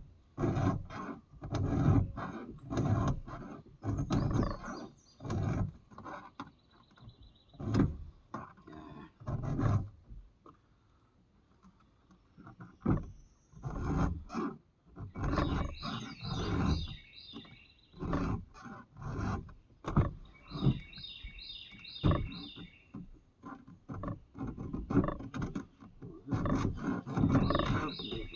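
A chainsaw chain being sharpened by hand, a file rasping across the cutter teeth in repeated strokes about one a second, with a brief pause partway. Birds chirp in short runs in the background.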